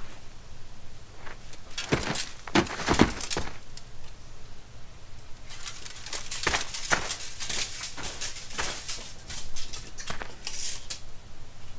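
Irregular clicks and knocks in a small, echoey room. A cluster comes around two to three seconds in and a denser run from about six seconds on.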